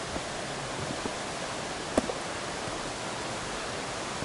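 Steady rush of a brook below the trail. Hiking-boot footsteps on the rocky dirt path sound over it, with a firmer footfall about two seconds in.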